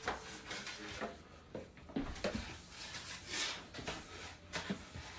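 Faint room sounds: scattered light knocks and rustles over a low hum.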